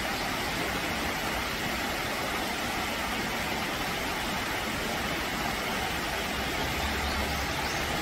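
Shallow rocky brook rushing over stones and small cascades, a steady, even rush of water.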